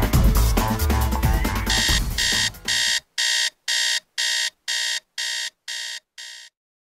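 Outro music with a drum beat that ends about three seconds in, overlaid by a digital alarm-clock beep that repeats about twice a second. The beeps carry on alone, growing slightly fainter, and stop about six and a half seconds in.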